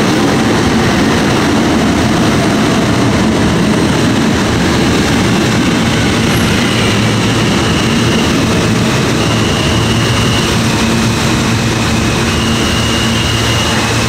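An R160 New York subway train pulls along the platform, a loud, steady rumble of wheels and traction motors. From about halfway through, a steady low hum from the standing train joins it, with a few short, high steady tones about a second long.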